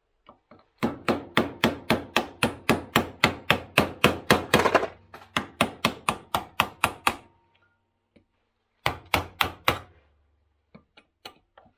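Hammer driving a steel chisel between two spot-welded 1 mm coated steel sheets clamped in a vise, a chisel test of whether the spot weld holds: a fast run of sharp metallic blows, about four a second, that thins out toward the end, then after a pause a short burst of four more blows.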